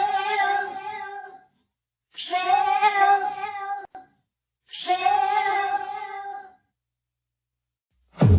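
A cat yowling: three long, drawn-out calls, each one and a half to two seconds, with short silent pauses between them.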